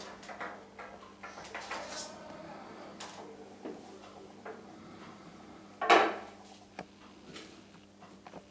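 Hands moving lemon halves on a foam tray on a wooden tabletop: light knocks, taps and rustles, with one much louder knock about six seconds in. A faint steady hum runs underneath.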